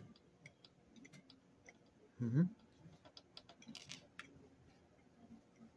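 Eating sounds: scattered small clicks of a plastic fork and of chewing, with a short hummed 'mm' rising in pitch a little over two seconds in, the loudest sound. A few sharper clicks follow about four seconds in.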